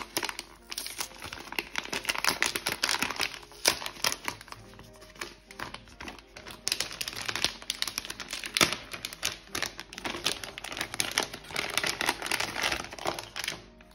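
Plastic packaging bag and paper sleeve crinkling and rustling as they are opened and handled, a rapid, irregular crackle.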